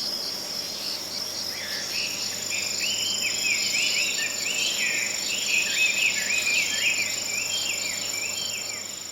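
Forest ambience of insects trilling steadily at a high pitch, with a second, higher trill joining about two seconds in. Over it, a bird calls with a quick run of short chirps.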